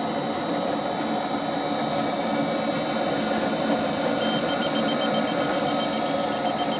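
TopTes PT199 combustible gas leak detector beeping rapidly, starting about four seconds in, as it picks up residual natural gas at the furnace's gas valve manifold after the valve is shut off. The furnace's steady running noise lies underneath.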